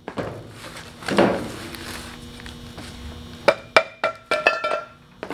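Rubber mallet knocking the cast-aluminium bell housing of a Yanmar KM2-A transmission to break it loose. A scraping shift about a second in, then a quick run of about six knocks near the end, each with a short metallic ring.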